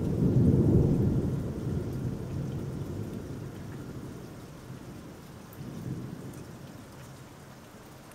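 Distant thunder rolling. It is loudest in the first second and dies away slowly, with a smaller swell of rumble about six seconds in.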